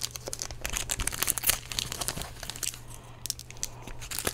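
Foil wrapper of a Magic: The Gathering set booster pack being torn open and crinkled by hand, a steady run of sharp crackles.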